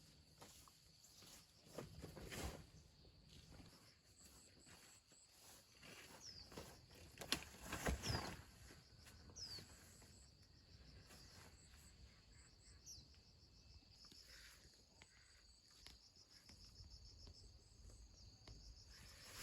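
Faint, steady insect chirring outdoors, with a few short high chirps over it and a couple of brief knocks or rustles about midway through.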